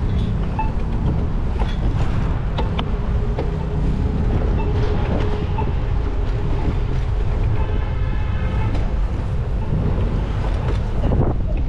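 A steady low rumble of wind on the microphone and city traffic from a moving bicycle, with a few sharp clicks. About eight seconds in comes a brief high-pitched squeal.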